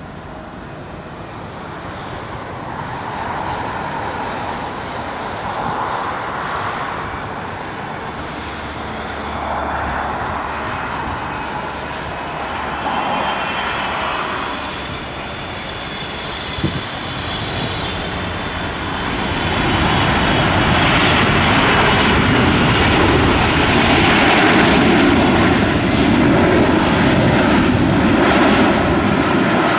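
Boeing 777-300ER's GE90 turbofan engines whining and rushing as the airliner comes in to land and touches down. About two-thirds of the way through, the engine roar builds and stays loud as the jet rolls out along the runway.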